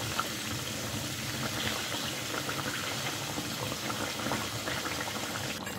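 Chicken pieces and tomatoes bubbling and sizzling in hot oil in an iron karahi, a steady frying sound.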